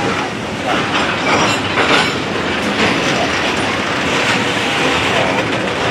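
Loaded covered hopper cars of a grain train rolling past close by: steady rumble of steel wheels on rail with repeated clicking of the wheels and a few brief, faint wheel squeals.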